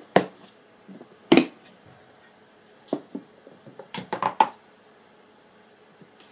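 Snap-lock lid of a plastic storage container being unclipped and lifted off: a few sharp plastic clicks and knocks, the loudest about a second and a half in, then a quick run of clicks about four seconds in.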